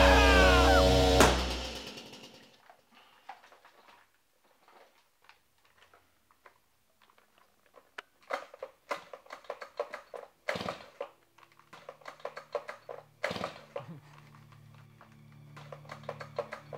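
Stihl chainsaw engine running, then cutting out about a second in and winding down to silence: the saw has stalled. Several seconds later comes a long string of clicks, clatters and thuds as the dead saw is handled and pulled at without the engine catching.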